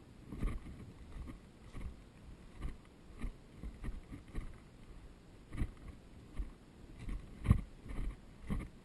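Footsteps of a player walking, thumping at an even pace of about two steps a second, with one heavier step a little past halfway.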